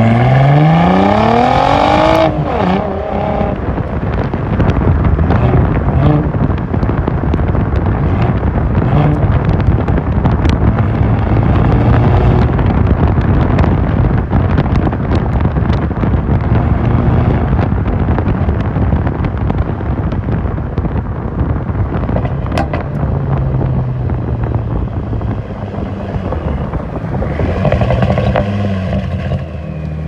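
Straight-piped turbocharged Audi A4 exhaust at the tailpipe: the revs climb steeply in the first two seconds, then the engine is held high and blipped, easing back near the end.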